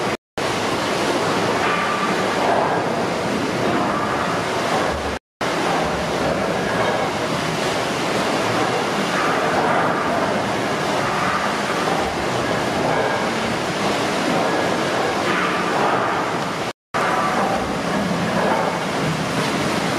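Steady, even rushing noise of 1868 beam engines and their pump gear running in the engine house, with no clear beat. It breaks off briefly three times, once near the start, once about five seconds in and once near the end.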